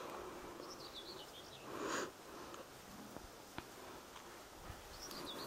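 Small songbirds chirping faintly in short twittering phrases, about half a second in and again near the end. A short soft noise about two seconds in.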